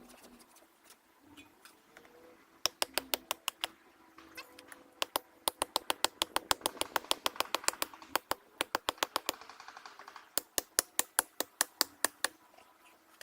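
Hand saw cutting into a tree stump at ground level: quick, sharp strokes about six a second in three runs, with short pauses between them.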